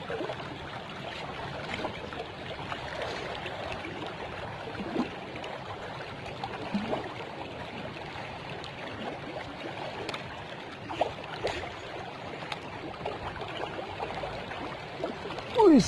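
Fast-flowing river water rushing steadily, with a few faint ticks and small splashes; a sudden louder sound with a falling pitch comes near the end.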